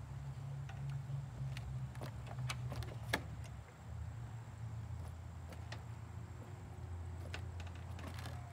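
Scattered light clicks and clinks of tie-down strap hooks being fastened to a toy trailer, over a steady low rumble.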